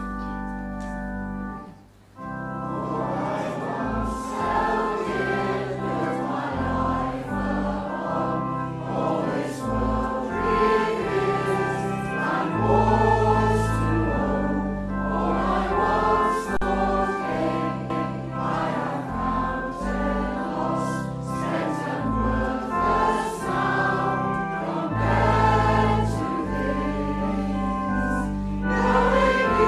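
Organ chord held, then a short break about two seconds in, after which a choir sings with organ accompaniment.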